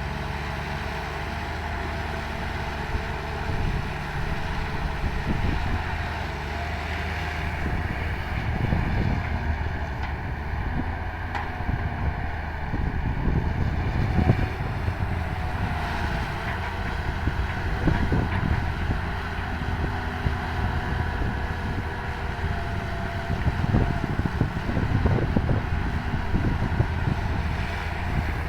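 Excavator's diesel engine running steadily under working load, with a faint whine over it and scattered knocks and clunks.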